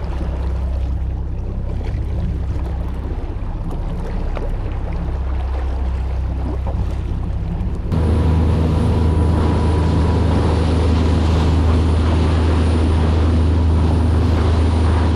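Fishing charter boat's engine running with a steady low hum over water noise. About halfway through it becomes markedly louder and fuller, as the boat gets under way to a new fishing spot.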